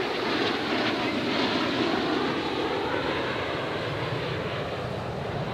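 Jet roar from a pair of F-16 Fighting Falcons flying a close formation pass, a loud steady rush of engine noise, loudest at the start and easing slightly as they pass.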